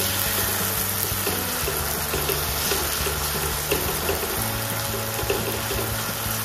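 Chopped capsicum and onion in sauce sizzling steadily in a hot non-stick wok while a slotted spatula stirs it.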